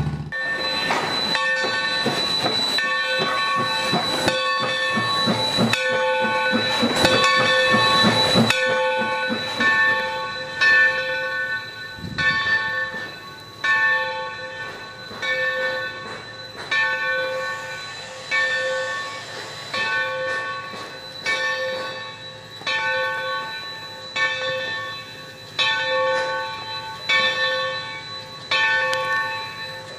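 Steam locomotive bell ringing steadily, about one stroke every 1.3 seconds, each ring dying away before the next. For the first eight seconds or so, louder clanking train noise runs under it, then stops abruptly.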